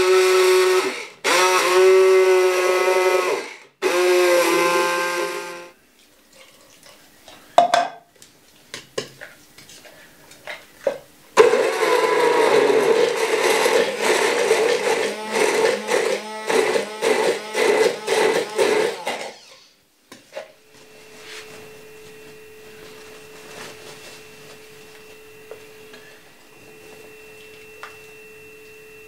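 Hand-held immersion blender running in its plastic beaker, chopping coconut pieces with water into coconut milk. Three short bursts, then after a pause with a few knocks, a longer run of about eight seconds that breaks into quick pulses in its second half; after that only a faint steady tone.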